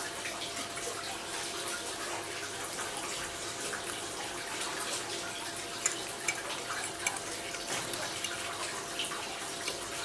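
Steady background hiss with a few light clicks of a metal fork against a ceramic plate, the clearest about six seconds in.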